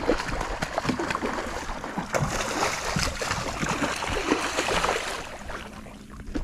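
Water splashing and churning as a hooked pike thrashes at the surface beside the boat, a busy crackling splash for about five seconds that dies away near the end.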